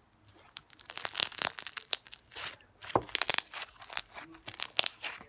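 Fishbowl slime squeezed and pulled between the fingers, giving a dense run of sharp crunching crackles from the beads mixed into it, starting about a second in.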